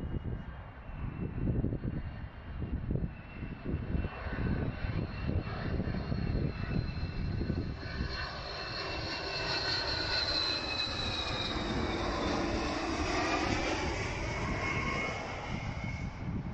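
DHL Boeing 757-236 SF freighter on landing approach passing close by: the rumble of its Rolls-Royce RB211 turbofan engines with a whining tone that builds, then drops in pitch as it goes past, fading near the end.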